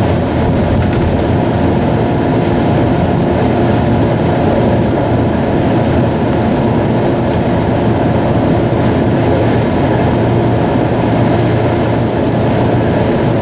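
Steady engine drone and road rumble of a vehicle cruising at highway speed, heard from inside the vehicle, with a low hum running throughout.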